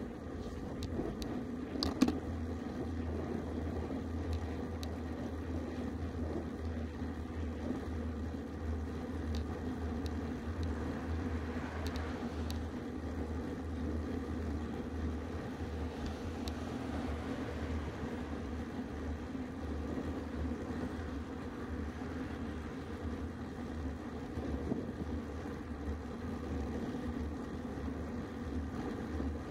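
Steady rumble of wind over the microphone and road-bike tyres rolling on asphalt, heard from a handlebar-mounted camera while riding. A single sharp click sounds about two seconds in, with a few faint ticks later.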